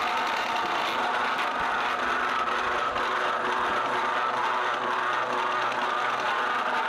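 Noodle-rolling machine running steadily, its gears and steel rollers turning with a constant mechanical whir and rattle as they press yellow noodle dough into a sheet.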